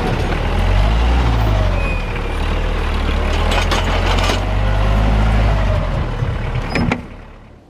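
A compact tractor's diesel engine running steadily as the tractor pushes snow with a front-mounted snowplow, with a pitched tone above the engine note that rises and falls. The sound falls away about seven seconds in.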